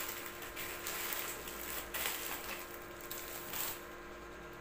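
Crinkling and rustling of packaging wrapping as it is pulled off a camera lens by hand, in uneven bursts that stop a little under four seconds in. A faint steady mains hum runs underneath.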